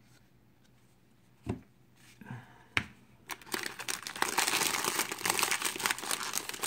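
A knock and a couple of light taps, then from about three seconds in a continuous crinkling of a foil trading-card pack wrapper being handled.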